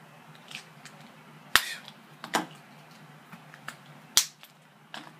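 Small plastic wax melt cups and lids clicking and tapping as they are handled. A few sharp clicks, the loudest about a second and a half in and again near four seconds, with lighter ticks between.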